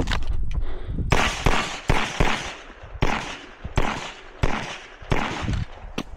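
A pistol fired in a string of shots, the first four in quick pairs a little under half a second apart, then single shots roughly two-thirds of a second apart, each crack followed by a short echo.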